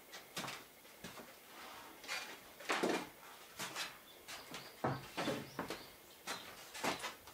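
A wooden plank being handled and moved about, with footsteps on a wooden floor: a run of irregular knocks, thumps and scrapes.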